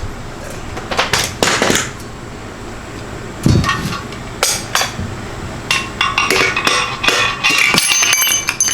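Hammer blows on metal as parts are knocked out of a Ford Coyote 5.0 engine block: irregular sharp knocks and metallic clinks, more frequent and ringing in the second half.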